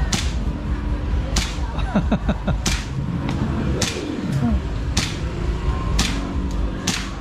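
A full-metal BB pistol being fired over and over: about seven sharp shots, roughly one a second, with a few fainter clicks in between, over a steady low background din.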